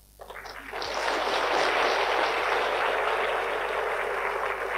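Audience applauding: clapping swells up within the first second and then holds at a steady level.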